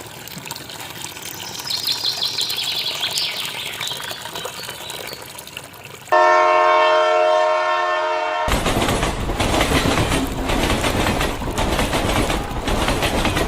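A train's horn sounds steadily for a couple of seconds about six seconds in. It cuts off abruptly as loud rhythmic clattering of passing train wheels takes over. Before the horn there is a softer rumble with some high squealing tones.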